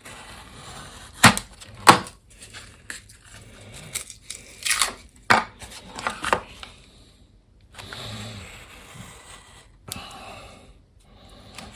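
Gypsum core of a 5/8-inch drywall piece snapping and crunching as it is broken off and peeled away from the face paper. There are two sharp cracks near the start, then a run of louder crackling and tearing in the middle, with lighter scraping and rustling between.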